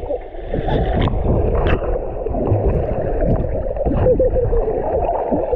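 Muffled churning and bubbling of water heard with the microphone underwater, a dense low rumble with a few sharp clicks.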